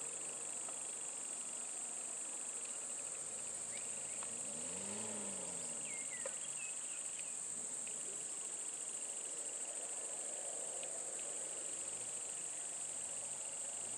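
Steady, high-pitched drone of insects from the surrounding forest, with a few short bird chirps. About five seconds in, a brief low pitched sound rises and falls in pitch.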